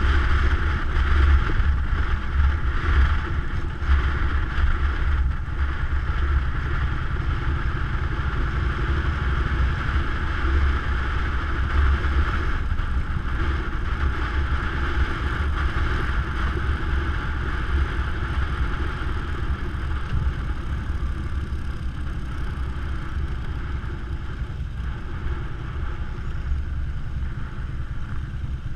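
Touring motorcycle engine running steadily at a low, even cruising pace, heard from on board, with a deep rumble under a constant hiss of wind and road noise.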